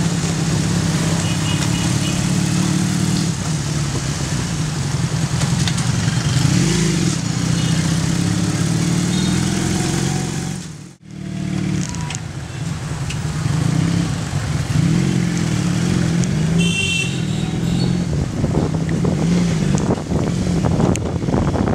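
Small motorcycle engine running while it is ridden along a street, its pitch rising and falling with the throttle, over wind and road noise. The sound cuts out briefly near the middle.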